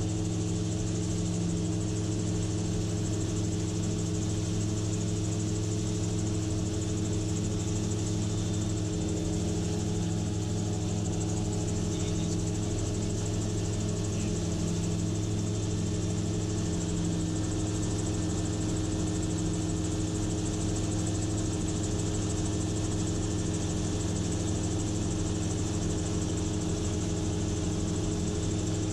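Gyrocopter engine and propeller running steadily in flight, one even drone that holds its pitch, over a steady rush of air.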